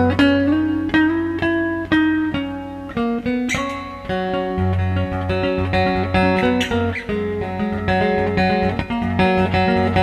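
Three-string Dog Bowl resonator guitar being played: a run of plucked notes over a low note that rings on underneath, with a few short slides in pitch.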